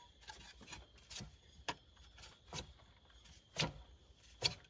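Light, irregular metallic clicks and taps, four of them louder, as a fan clutch and fan are turned by hand to thread them onto the water pump pulley hub.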